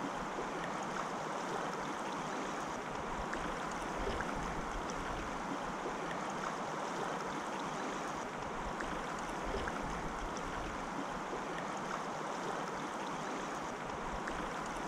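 River water rushing steadily over a shallow cobble bed.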